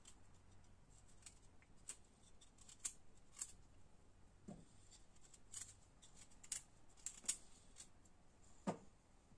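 Faint, irregular scraping strokes of a blade peeling skin off a raw red beetroot, with two soft knocks, one about halfway through and one near the end.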